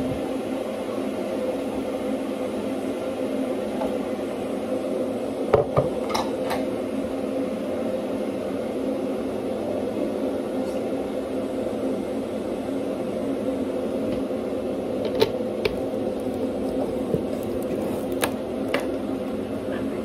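Steady machine hum of a kitchen appliance running, unchanging, with a few light clicks and taps of things handled on the worktop.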